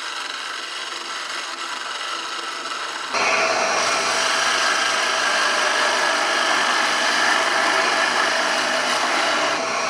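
DeWalt radial arm saw motor spinning a wooden workpiece on its lathe attachment, with a hand-held turning tool scraping and cutting the turning wood. About three seconds in the cutting gets suddenly louder and stays steady.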